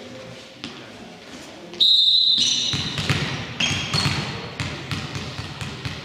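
Basketball bouncing on a gym court amid knocks and short high squeaks, the loudest squeak about two seconds in.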